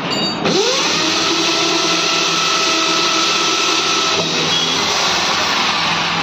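Cordless electric drill spinning up about half a second in with a rising whine, then running steadily at speed as its bit bores a screw hole through a number plate; its note changes about four seconds in.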